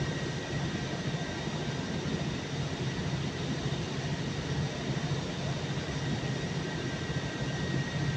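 Steady drone of running machinery: a low hum with a faint steady high whine above it, unchanging throughout.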